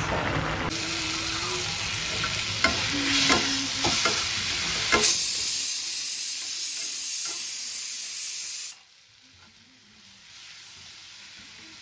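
Food frying and sizzling in a kadhai, stirred with a few sharp clicks and scrapes of the spatula against the pan. The sizzle cuts off suddenly about three-quarters of the way through, leaving a much quieter stretch.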